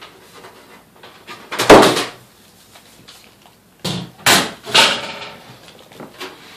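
A loud knock about two seconds in, then three quicker knocks a couple of seconds later: a desktop computer case's side cover being handled and taken off.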